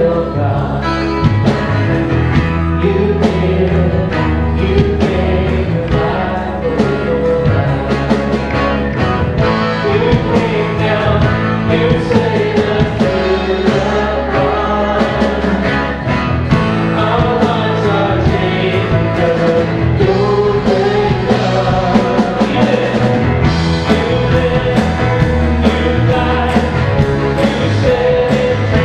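Live song: a man singing lead over a strummed acoustic-electric guitar, with steady low bass notes underneath and a woman singing backing vocals.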